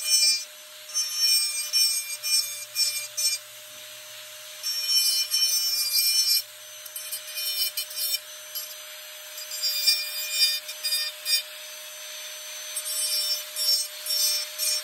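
Rotary carving handpiece with a small diamond bit grinding into the tail feathers of a carved wooden bird. The motor whines steadily, and scratchy grinding comes in bursts every second or two as the bit undercuts along the burned feather lines.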